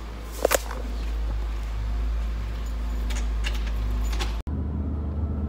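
Handling noise from a phone being carried and moved against clothing, with two sharp clicks about half a second in and a few lighter clicks later, over a steady low rumble. Near the end it cuts abruptly to the low, steady hum of a car driving, heard from inside the cabin.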